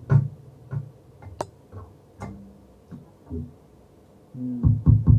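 Funk drum samples being auditioned in music software: scattered single drum hits with low thumps and a sharp click, then a faster run of hits near the end.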